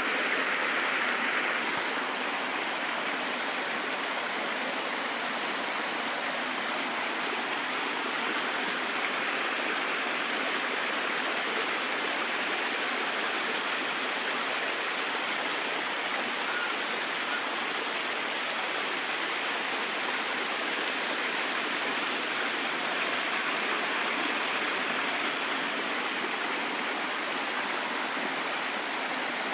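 Creek water running steadily over rocks, a constant rushing.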